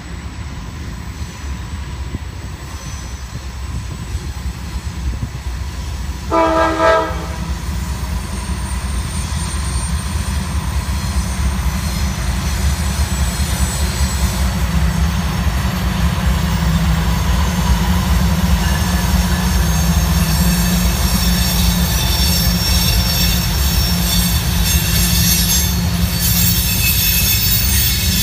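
Freight train led by diesel locomotives approaching and rolling by on a sharp curve: a steady rumble that grows louder, one short horn blast a little over six seconds in, and high-pitched wheel squeal from the cars in the curve in the second half.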